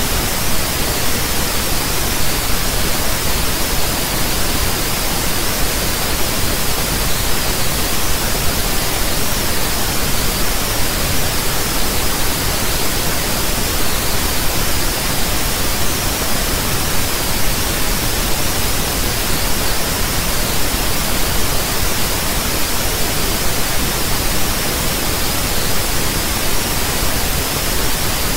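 Loud, steady static-like hiss, even and unchanging, with no other sound in it.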